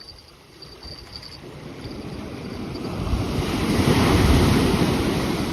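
Waves breaking on the beach, the surf swelling to its loudest about four seconds in and then easing, with wind buffeting the microphone.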